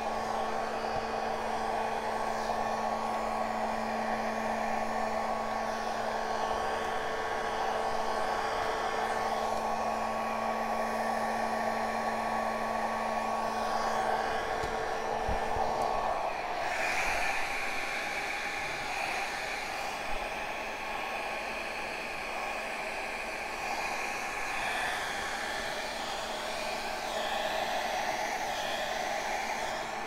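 Handheld hair dryer running steadily, blowing wet acrylic pour paint across a canvas. Its hum changes pitch partway through.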